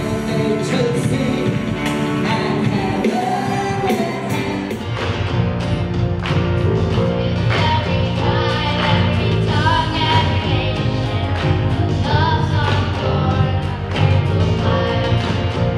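Music with singing. About five seconds in it changes to a group of young girls singing a Christmas song together, backed by a live band with a steady beat.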